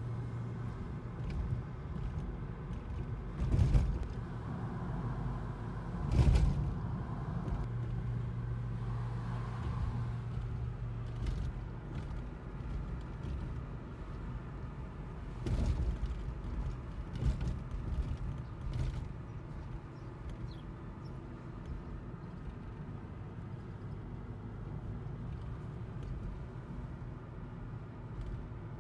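Road noise inside a moving car: a steady low engine and tyre hum, broken by several sharp thumps, the loudest about four and six seconds in, and more a little past the middle.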